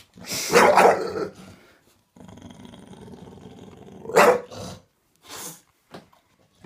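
English bulldog growling and giving short gruff barks: a loud outburst about half a second in, a steady growl for a couple of seconds, then another sharp bark just after the growl and a few smaller ones.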